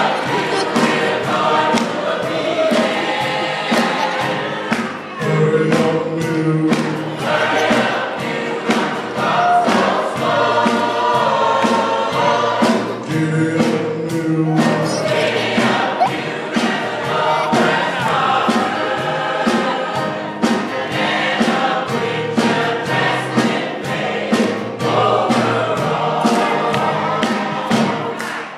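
Church gospel choir singing in full voice, with a steady beat running under it.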